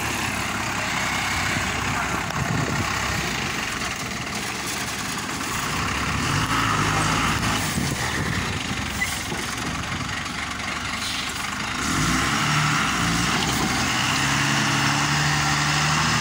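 Tata truck's diesel engine running, a steady low hum that gets louder from about twelve seconds in.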